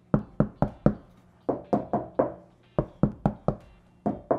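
Knuckles knocking on a Toyota Tacoma's door panels in quick sets of about four raps. First they knock on the front door, lined with Kilmat butyl sound-deadening mat. Near the end they knock on the untreated rear door, which sounds a lot more hollow.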